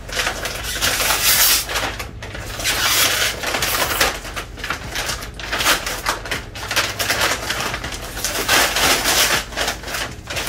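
Brown kraft-paper plant wrapping crinkling and rustling in irregular bursts as it is pulled and torn open by hand.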